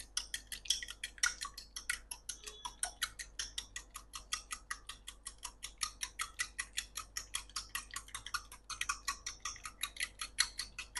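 A fork beating eggs in a small ceramic bowl, clicking against the bowl in a quick, steady rhythm of about six strokes a second, with a brief pause about three-quarters of the way through.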